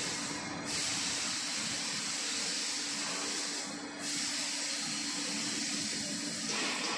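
Steady hissing background noise with a faint, steady low hum underneath; no distinct knocks or clicks stand out.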